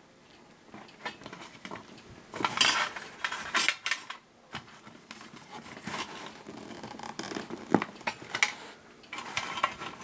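Wire coat-hanger prongs scraping and clinking against a tin-can hobo stove as they are pushed through its holes and twisted into place: irregular metallic rattles and sharp clicks, busiest about two to four seconds in.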